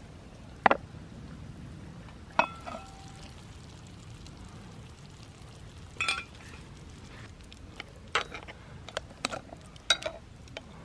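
Camp cookware being handled: a series of sharp clinks and knocks, a couple of them ringing briefly like metal, over a steady low background noise.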